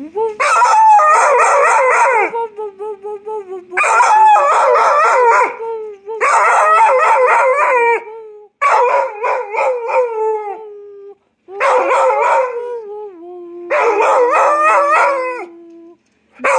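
A dog howling in about six long, wavering bouts of one to two seconds each, with short whines in the gaps between them.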